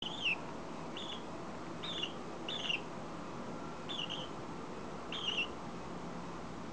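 Budgerigar giving six short chirps, each dropping quickly in pitch, spaced irregularly about a second apart, over a steady background hiss.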